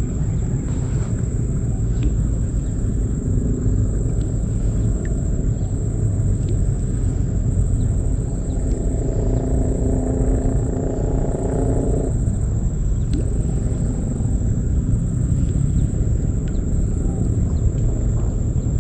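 Wind rumbling on the microphone, under a steady high whine. A little past the middle, a low pitched hum comes in for a few seconds and then stops suddenly.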